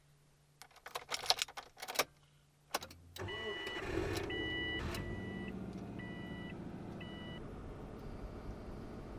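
A few clicks and knocks, then about three seconds in the Subaru Forester XT's turbocharged flat-four engine starts and settles into a steady idle. A warning chime beeps five times while it starts.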